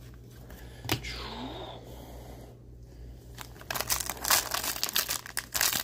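Foil wrapper of an Upper Deck hockey card pack being torn open and crinkled, a dense crackling run that starts about two-thirds of the way in. Before it, quiet handling of a stack of cards with a single light tap about a second in.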